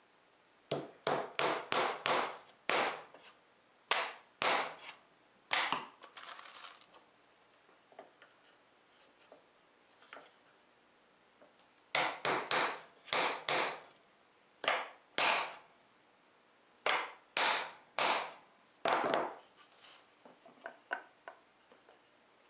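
Steel claw hammer driving 1½-inch common nails into a small wooden block, starting the nails until their points just peek through. The blows come in several runs of quick sharp taps with pauses between, and a few lighter taps near the end.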